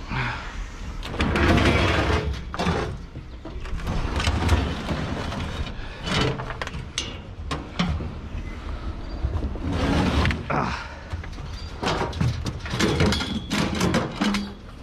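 A heavy sheet-metal appliance being dragged and heaved over the rim of a steel mesh cage: scraping and irregular metal-on-metal knocks and thuds, loudest about two seconds in and again near four and ten seconds.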